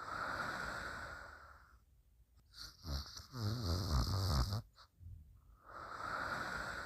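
Quiet snoring in slow breaths: a breathy hiss at the start, a louder rattling snore about three seconds in, then another breathy hiss near the end.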